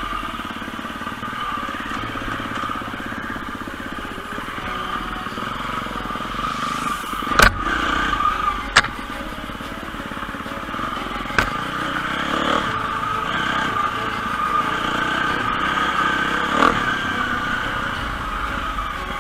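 Enduro motorcycle engine running steadily while riding off-road, with four sharp knocks spread through the ride.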